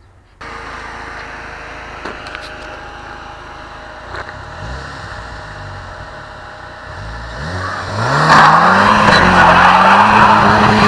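Turbocharged 2.0 Ecotec engine of a modified Chevrolet Cobalt SS running, revving up about seven seconds in as the car pulls away. From about eight seconds in the tires spin on loose gravel, much louder than the engine.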